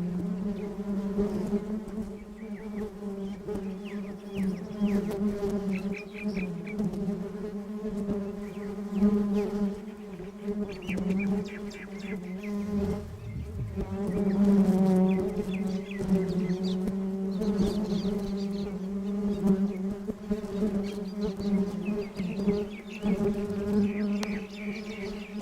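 Honeybees buzzing as they forage on flowers: a steady low hum that swells and eases again and again.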